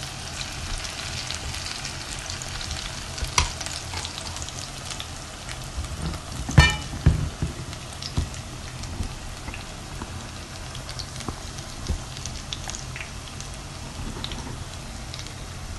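Gram-flour battered potato-and-onion pakoras deep-frying in hot oil in a pan: a steady crackling sizzle with small pops. A sharp knock with a brief ring comes about six and a half seconds in.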